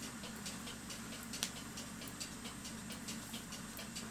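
Mechanical clock ticking steadily, about four or five quick, even ticks a second, with one sharper click about a second and a half in.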